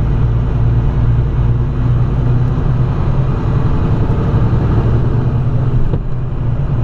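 Steady in-cab drone of a vehicle driving down the road: a constant low engine hum with road and tyre noise.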